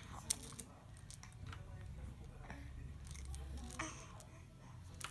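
Baby sucking and mouthing on her fist, faint wet squishy mouth sounds, with a few sharp clicks, the strongest a fraction of a second in.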